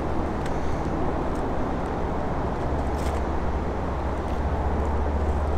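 Steady low outdoor rumble, with a few faint footsteps on the trestle's wooden ties.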